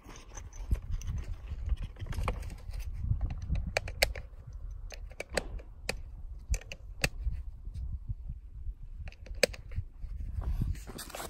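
Wind rumbling on the microphone, with scattered sharp clicks and taps and a couple of louder knocks, about four seconds in and near the end.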